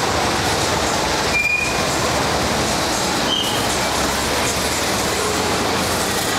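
Loud, steady rumble of passing vehicles, with two short high squeaks about a second and a half and three and a half seconds in.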